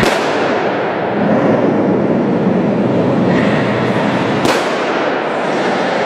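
Two sharp cannon-shot reports from an RC model Sherman tank firing, one at the start and one about four and a half seconds in, over a continuous rumbling, clattering running noise of the model tanks.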